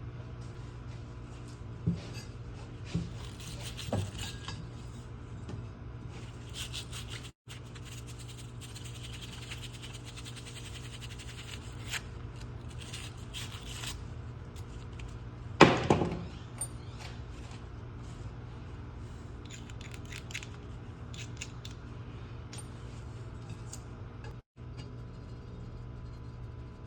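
Hands working copper pipe and a repair coupling: intermittent scraping and light metallic clicks and clinks, with one sharp knock a little past halfway, over a steady low hum.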